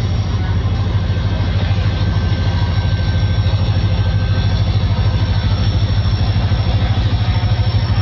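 Pakistan Railways HGMU-30 diesel-electric locomotive's engine running as it pulls slowly away, with a deep, rapid, regular throb that grows stronger near the end.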